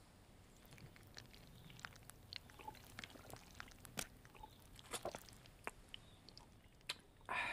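A man drinking down a tall glass of thick milk: faint swallowing and wet mouth clicks scattered throughout, with a louder sound lasting about half a second near the end.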